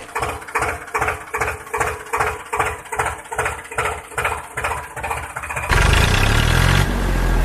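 Tractor engine idling with an even chug of about three beats a second; near the end a louder, deeper engine sound takes over.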